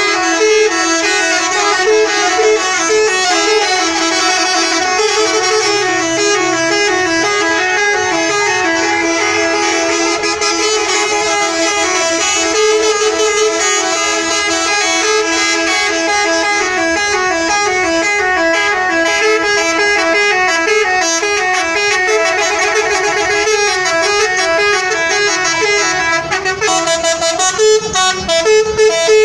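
Multi-tone 'telolet' bus horn playing a loud, unbroken tune of short notes that keep stepping between a few pitches, with quicker, choppier blasts near the end.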